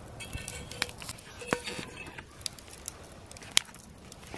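A metal fork clinking and scraping against a cast iron skillet while pancakes are lifted out. A few sharp clinks ring briefly, over the faint crackle of a campfire.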